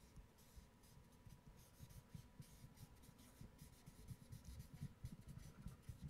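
Felt-tip marker writing on flip-chart paper: faint, quick scratching strokes, one after another, as letters are drawn.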